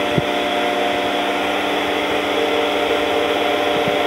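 Tormach 1100 CNC mill running a profiling cut in sheet metal under flood coolant: a steady machine hum with several held tones, and one short click just after the start.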